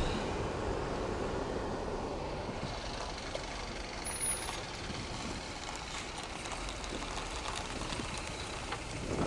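Scania R560 truck's V8 diesel running with a steady low rumble, a little louder at the start and again near the end. A brief high tone sounds about four seconds in.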